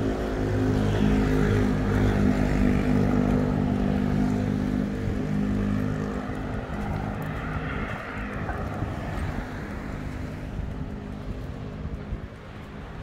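A vehicle engine humming steadily, loudest for the first half and then fading away, over the noise of street traffic.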